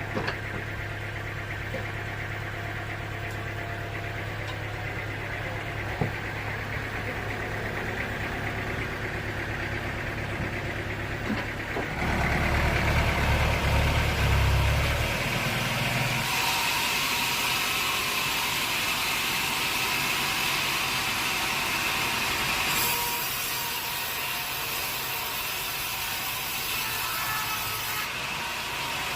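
Sawmill machinery running steadily. About twelve seconds in, it grows louder with a deep rumble for a few seconds, then a steady hissing noise sets in, typical of a saw cutting through a log.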